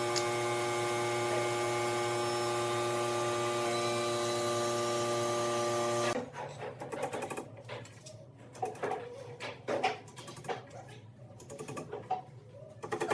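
An electric woodworking power tool runs at a steady speed and then cuts off abruptly about six seconds in. It is followed by scattered light knocks and clicks of wood being handled.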